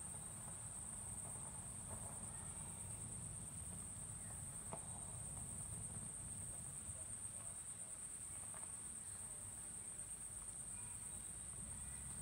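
Insects chorusing: a steady, high-pitched trill that holds without a break.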